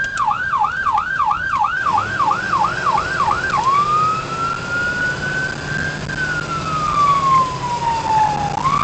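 Ambulance siren on a code 3 run, heard from inside the cab: a fast yelp of about three cycles a second, switching a little over three seconds in to a slow wail that rises, falls and starts rising again near the end.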